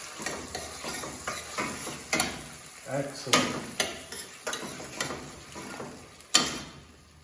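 Onion and pepper frying in a pan, sizzling, as a utensil stirs in chopped fresh tomato, with repeated clicks and scrapes against the pan.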